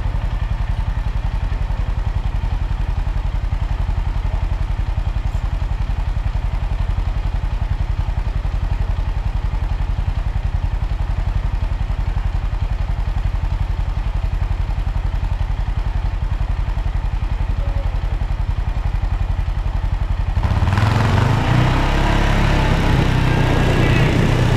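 Quad bike engine running steadily at idle. About twenty seconds in it gets louder as the quad sets off towing the roping-dummy sled over the arena dirt.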